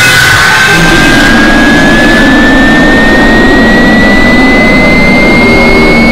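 A very loud, distorted wall of layered noise with a single whistle-like tone that rises slowly and steadily in pitch; the hiss above it thins out after about a second.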